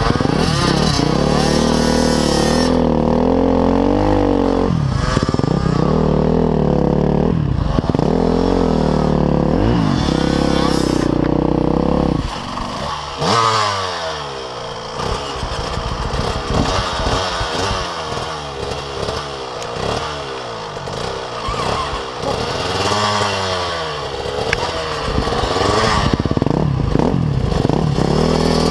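Off-road motorcycle engine running hard, its pitch wavering as the throttle works through deep sand. About twelve seconds in it gets quieter and the revs rise and fall again and again in short bursts of throttle on a tight, overgrown trail.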